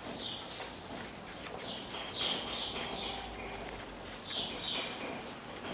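Small birds chirping: short high calls repeating every second or so, some in quick pairs. Faint clicks sound underneath.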